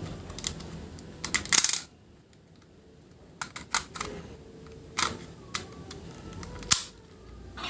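Sharp plastic clicks and light rattles from handling the DX Engine Changer toy, in scattered groups with a single sharp click near the end.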